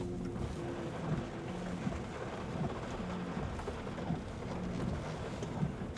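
Low, uneven rumble of a car driving, with wind buffeting.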